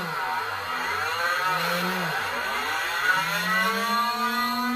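Small 12-volt DC motor of a homemade mini drill press running with a whine, slowing sharply twice and speeding back up, then settling to its steady full-speed pitch near the end.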